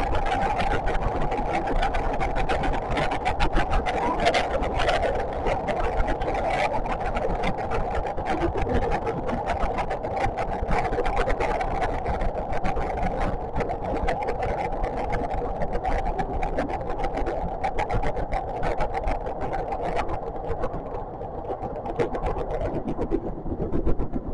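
JR West 521 series electric train running on the line, heard from inside: a steady rumble of wheels on rail with a continuous hum and frequent short clicks. The noise thins out and grows quieter near the end.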